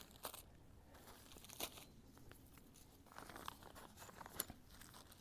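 Near silence, with a few faint crinkles and clicks, most of them between about three and four and a half seconds in.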